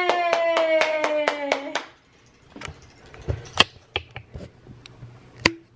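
Hands clapping quickly, about five claps a second, under a long drawn-out "wow" that falls in pitch; both stop a little under two seconds in. After that, scattered light taps and knocks.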